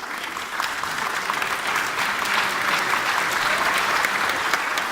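Audience applauding: many hands clapping, building up over the first second into steady applause.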